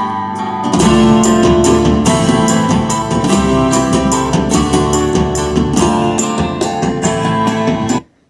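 Band music played through a small homemade low-current audio amplifier into a wooden-cabinet speaker, picked up by a microphone in front of it as a test of how the amplifier sounds. It gets louder about a second in and cuts off abruptly near the end.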